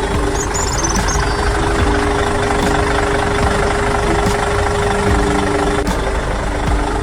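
Heavy-machinery diesel engine running steadily, as of an excavator at work. A few short bird chirps come in briefly about half a second in.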